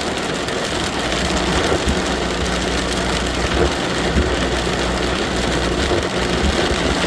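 Very heavy rain pounding on a vehicle's roof and windshield, a loud steady hiss with a low steady rumble underneath.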